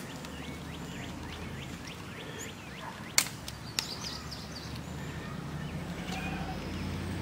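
Quiet outdoor background with a low steady hum and faint small-bird chirps, broken by a sharp click about three seconds in and a softer one just after, from small metal parts being handled at the engine case.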